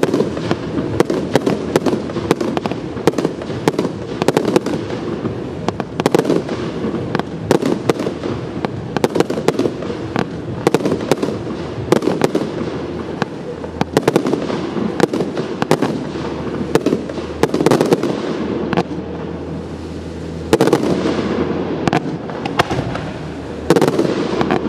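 Aerial fireworks display going off in a rapid, unbroken string of sharp bangs, many a second.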